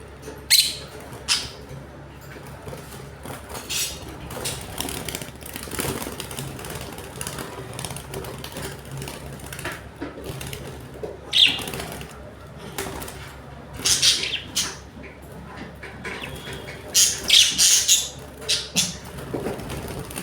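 Pet lovebirds chirping: short, sharp, high calls scattered throughout, with a quick run of them near the end.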